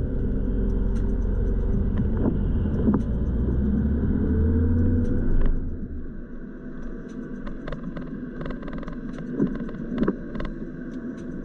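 Car driving on a wet road: heavy engine and road rumble with the engine note rising briefly. About five and a half seconds in it drops suddenly to a quieter road noise with scattered clicks and a couple of knocks.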